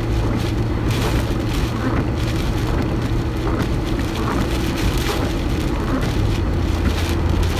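Car driving, heard from inside the cabin: a steady engine and road drone with the hiss of tyres on a wet road. The engine's hum drops a little in pitch about six seconds in.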